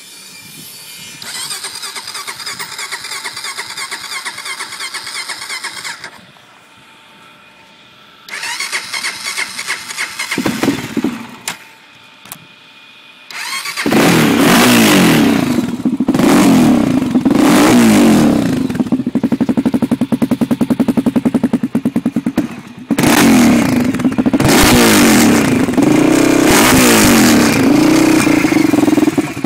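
2001 Honda TRX400EX's single-cylinder four-stroke engine, breathing through a Pro Circuit T4 slip-on exhaust, being cranked cold on choke: two long spells of cranking, then it catches about 14 seconds in and is revved repeatedly, with a brief dip about 23 seconds in.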